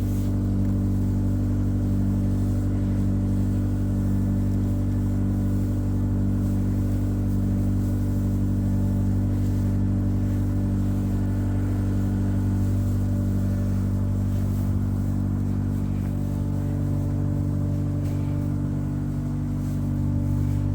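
A farm machine's engine running steadily at a constant speed, a low even hum.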